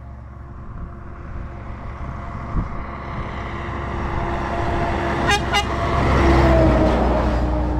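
A truck comes up from behind and passes close by on the road. Its engine and tyre noise grow steadily louder and peak about six and a half seconds in, and the engine tones drop in pitch as it goes by. Two quick horn toots sound a moment before it passes.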